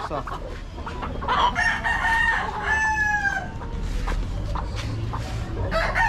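A gamecock crowing: a drawn-out call in two held notes, from about one and a half to three and a half seconds in, the last note dropping slightly at its end.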